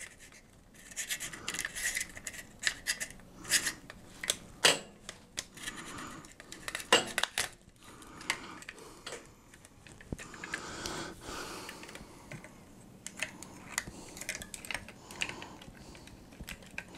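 Irregular small metal clicks, taps and scrapes from handling an aluminium quick-release clamp on a tripod head, with a knife blade pressing down the clamp's locking pin.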